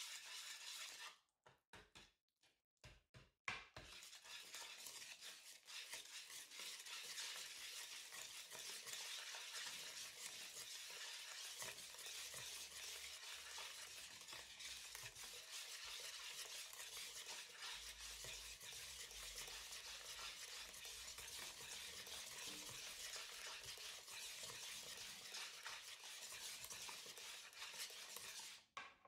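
Wire balloon whisk beating egg yolks, flour and cocoa into a chiffon cake batter in a bowl: a fast, steady swishing and scraping of the wires. It pauses briefly about a second in, with a few light taps, then carries on.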